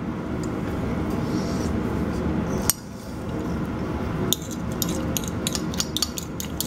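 Metal fork clinking and scraping against a ceramic bowl of gravy-soaked fries. It sounds once sharply a little before the middle, then keeps clicking quickly through the second half, over a steady low background noise.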